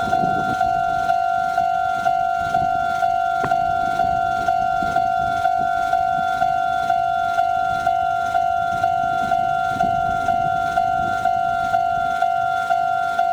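Japanese railway level crossing's electronic warning bell ringing: one steady tone struck over and over at an even, quick pace, signalling that a train is approaching and the crossing is closed.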